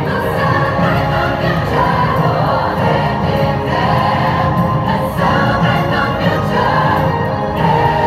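Fireworks-show soundtrack music with a choir singing, loud and steady.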